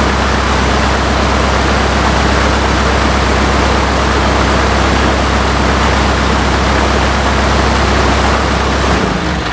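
Lycoming O-320 four-cylinder aircraft engine of an RV-7A running steadily on a ground run-up, its propeller blast rushing over the microphone. About nine seconds in the engine is shut off and the sound begins to die away.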